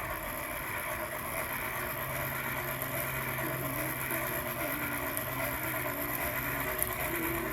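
Hand-cranked blacksmith forge blower whirring steadily as it is cranked, blowing air under the fire to get it hot. A low steady hum settles in about two seconds in.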